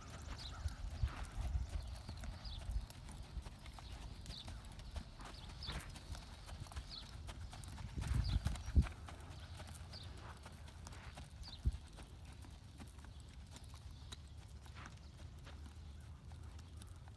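Hoofbeats of a sorrel American Quarter Horse gelding loping on soft arena sand: muffled thuds in an uneven three-beat pattern. They are loudest about eight seconds in, as the horse passes close.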